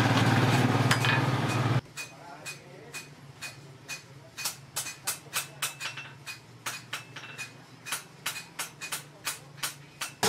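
Steady road traffic noise for a couple of seconds, then a quieter run of quick ringing hammer blows on steel at an anvil, about three to four strikes a second, from bolo blades being forged.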